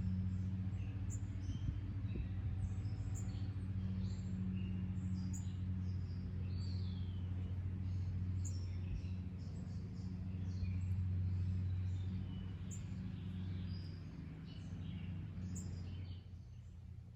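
Small birds chirping and calling, many short notes, over a steady low mechanical drone that fades away near the end.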